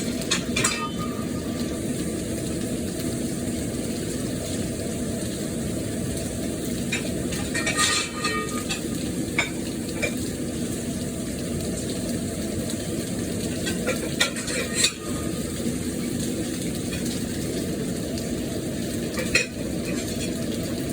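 Marinated chicken pieces frying in oil in a cast iron pan, a steady sizzle now that the marinade liquid has mostly cooked off. A metal utensil clinks and scrapes against the pan several times as the pieces are turned.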